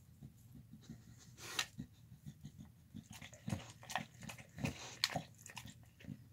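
A dog eating soft food (chicken, rice, spinach and lentils) off a board, with irregular short wet chewing and smacking sounds.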